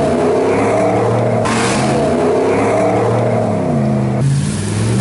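Pickup truck engines running under load and revving, their pitch holding and then sliding up and down. The sound changes abruptly about a second and a half in and again near four seconds.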